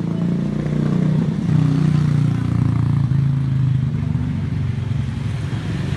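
A motor vehicle engine running, growing a little louder about a second and a half in and easing off again.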